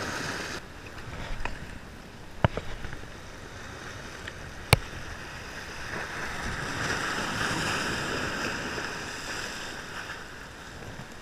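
Small waves sloshing and splashing against the boulders of a rock jetty, swelling for a few seconds past the middle. A few sharp clicks cut through, the loudest about two and a half and nearly five seconds in.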